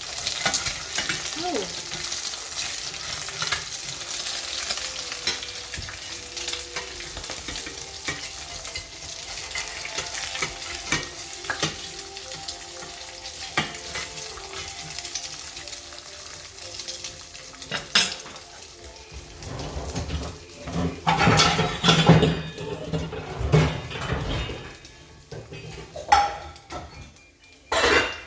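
Food sizzling in a frying pan, with a utensil stirring and scraping. The sizzle dies down about halfway through, and from then on there are knocks and clatter of pans and utensils.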